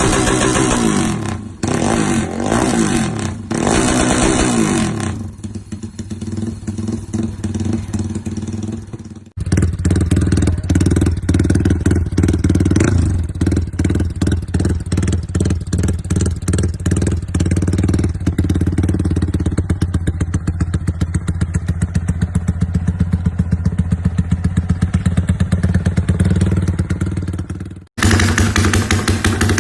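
Yamaha Y15ZR's 150 cc single-cylinder four-stroke engine running loudly through its exhaust, in several joined clips. The first few seconds are quick throttle blips. After a cut about nine seconds in comes a long steady run with a fast, even beat. Another clip starts near the end.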